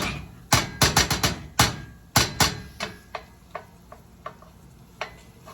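Spoon knocking against a cooking pan while stirring tomato paste and butter: a quick run of sharp knocks, then fainter, evenly spaced taps.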